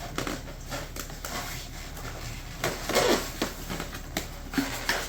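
Foam packing and model parts being handled and pulled out of a box: irregular rustling and scraping with a few sharp knocks, loudest about three seconds in.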